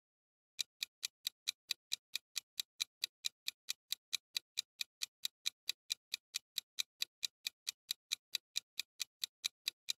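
Clock-ticking sound effect for a quiz countdown timer: quick, even ticks, about four to five a second, starting about half a second in.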